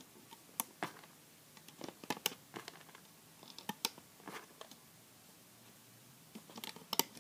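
Faint, irregular clicks and taps as rubber bands are stretched and snapped onto the plastic pegs of a Rainbow Loom by hand.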